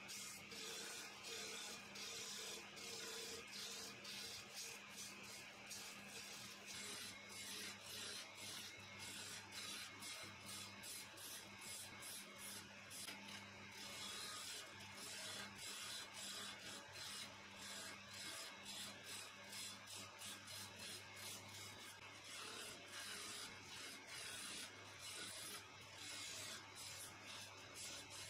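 Wood lathe running while a hand-held turning chisel scrapes and cuts a spinning blank of laminated wood rings: a steady motor hum under a rasping hiss of the tool on the wood that rises and falls about twice a second.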